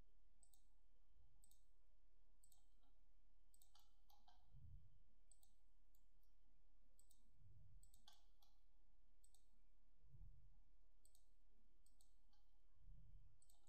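Faint computer mouse clicks, irregularly spaced at about one or two a second, as points of a line are placed one after another, with a few soft low thuds between them.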